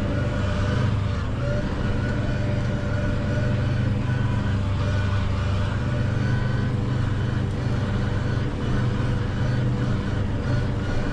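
Valtra N 121 tractor's diesel engine running at a steady, even speed while mowing, heard inside the cab, together with the drive of the Claas Corto front drum mower.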